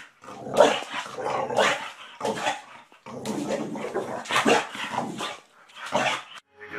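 Boxer dog barking over and over in excited play, about ten barks in a row with short, uneven gaps between them.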